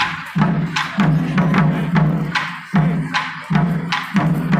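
Music of loud drum strikes in a quick, uneven rhythm, each hit ringing on with a low, deep tone.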